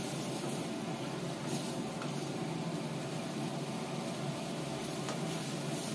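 A gas stove burner running with a steady rushing noise under a pan of butter chicken gravy.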